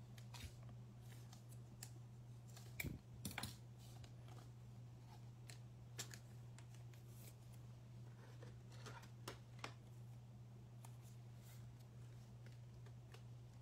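Faint handling of trading cards: scattered soft clicks and scrapes as cards are slid, sorted and set down, over a steady low hum.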